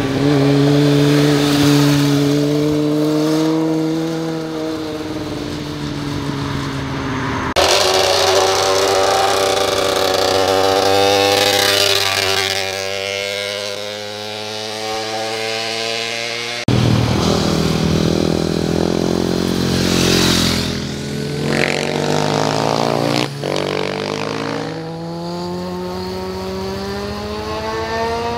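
Motorcycle engines, one bike after another, leaning through a tight bend and accelerating out of it, the engine note sinking and rising with the throttle. Twice the sound cuts abruptly to a different bike, and near the end a rising engine note marks a bike pulling hard out of the corner.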